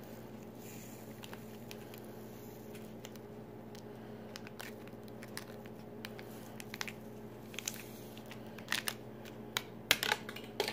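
Small paper drink-mix packets crinkling and rustling in the hands as powder is poured from one packet into the other, with sharper, more frequent crinkles near the end.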